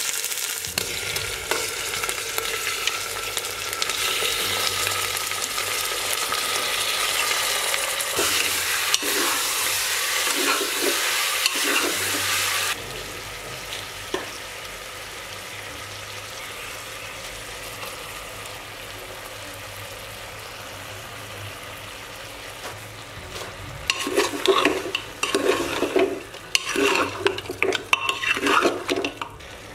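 Chopped onions sizzling in hot oil in an aluminium pressure cooker pot, a loud steady hiss that drops suddenly about 13 seconds in to a quieter sizzle under the spiced goat meat. Near the end a metal spoon stirs the meat, scraping against the pot in quick irregular strokes.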